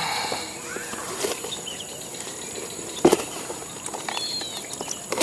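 Outdoor ambience: a steady high-pitched insect drone, a few short chirps, and one sharp click about three seconds in.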